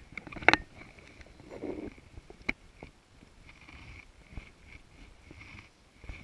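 Fly line being drawn in by hand through the rod rings: soft, repeated short swishes. There is a sharp knock about half a second in and a lighter click about two and a half seconds in.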